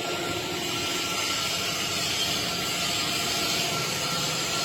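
Steady machinery noise in a busy workshop: a constant hum and hiss with a thin, high, steady whine running through it.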